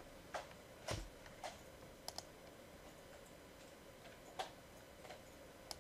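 Faint, scattered clicks of a computer mouse and keyboard, about seven in all, spaced unevenly with gaps of up to two seconds.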